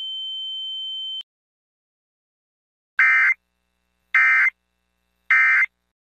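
A steady high electronic tone cuts off about a second in. After a short silence come three short, equal bursts of buzzy digital data tone a little over a second apart: the EAS end-of-message (EOM) code bursts that close an Emergency Alert System broadcast.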